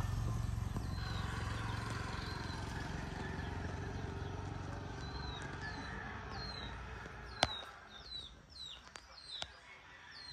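Small birds chirping in short, quick, falling notes, more and more often after the first few seconds, while the low rumble of a passing vehicle fades out early on. A single sharp click sounds about seven seconds in, with fainter ones after it.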